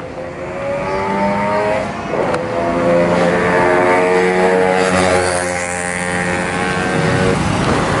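Several motorcycle engines passing close by on a busy road, their engine notes rising as they accelerate, over road noise. The engine tones fade out about seven seconds in.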